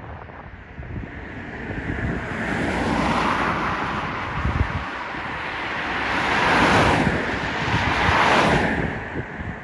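Passing road traffic: tyre and engine noise swells from about a second in, peaks twice in the second half and fades away near the end. Wind rumbles on the microphone throughout.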